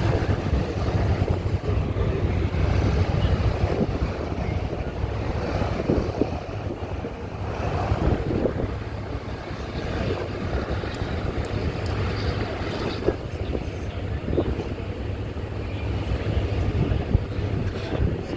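Distant WWII bombers' piston engines at takeoff power, a steady rumble mixed with heavy wind buffeting on the microphone.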